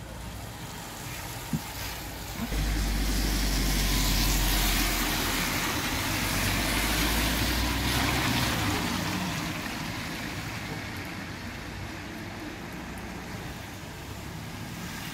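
A car driving past on a wet road: tyre hiss on the wet tarmac swells over a few seconds and fades away, over a steady background of rain.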